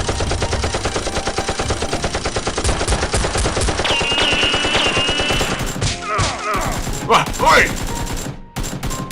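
Rapid automatic gunfire, a continuous stream of shots many times a second that stops shortly before the end, with a shout near the end.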